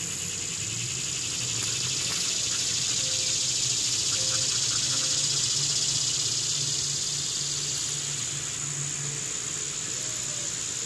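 Outdoor insect chorus: a steady high-pitched buzz, joined by a louder pulsing buzz that swells up about a second and a half in and fades away about eight seconds in.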